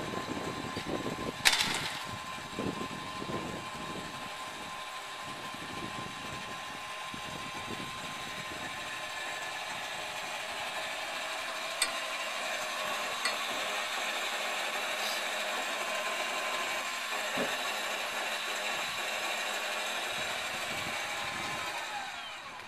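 Small electric motor whining steadily as the trailer's tongue jack is retracted, with a couple of sharp clicks; its pitch falls as it stops near the end.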